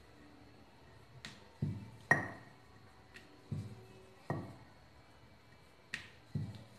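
Wooden rolling pin knocking and rolling on a stone board as a small disc of semolina dough is rolled out: a series of short knocks and thuds, the sharpest a clack about two seconds in.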